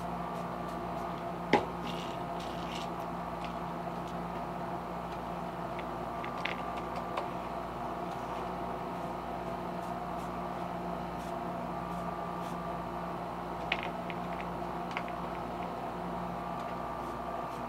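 A steady machine hum runs throughout, with a few sharp clicks and taps from tools being handled on the bench. The loudest click comes about a second and a half in.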